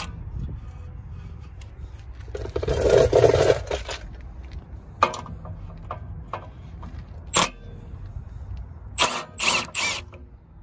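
Milwaukee brushless cordless impact driver backing out crash bar mounting bolts: one run of about a second and a half a couple of seconds in, then several short sharp bursts near the end.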